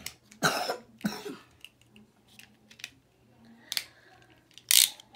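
Handling noise: a few short rustles and sharp clicks, scattered, with quiet gaps between.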